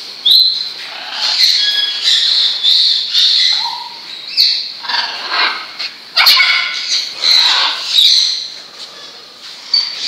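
Macaws in an aviary giving repeated harsh squawks, about one a second, some of them rising or falling sharply in pitch.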